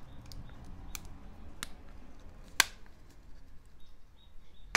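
A few small sharp clicks of a metal pin picking at the clips of a plastic trailer-plug connector and its metal bracket, freeing a rock stuck in a clip; the sharpest click comes about two and a half seconds in.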